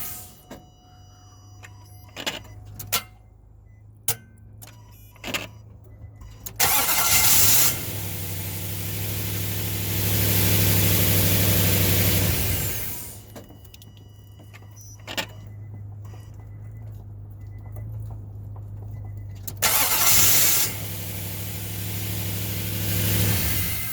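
2005 Nissan Titan's 5.6-litre V8 being started twice: a few clicks, then a short burst of cranking as it catches and runs, is revved briefly and shut off. After a pause it cranks and starts again and idles. Here it starts normally, despite the truck's random no-start fault.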